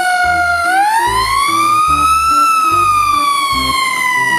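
Fire truck siren wailing: the pitch slides slowly down, rises from just under a second in to a peak, then slowly falls again.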